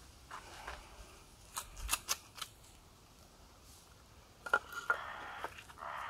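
Sharp clicks and cracks from a bone being worked with a Victorinox Alox pocket knife: a cluster in the first two and a half seconds, then two more about four and a half seconds in, followed by a brief rasping scrape.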